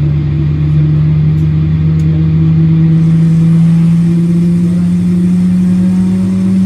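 A loud, steady engine drone whose pitch creeps slowly upward.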